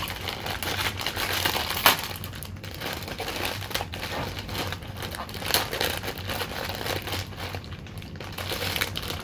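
Plastic instant-noodle packet being handled and pulled open, crinkling with irregular sharp crackles; the loudest crackle comes about two seconds in.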